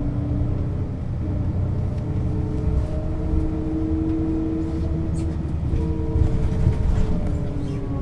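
1996 Setra S 315 UL city bus driving at a steady pace: the engine drones low, with a steady gearbox whine held over it. Faint rattles come in the second half.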